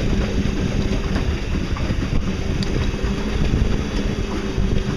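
Small electric boat under way: a steady low rumble of wind buffeting the microphone and water, with a faint steady hum from the electric motor running at cruising speed.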